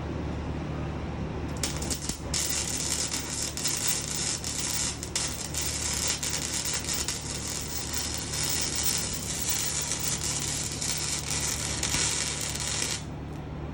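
Welding arc crackling and sputtering steadily for about eleven seconds, starting a couple of seconds in and cutting off near the end, over a steady low hum.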